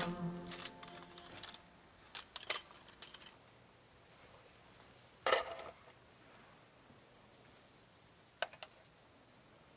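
A few light metallic clinks and knocks as a Dietz hurricane lantern and camp gear are handled on a folding table; the loudest knock is about five seconds in and has a short ring. Background music fades out at the start.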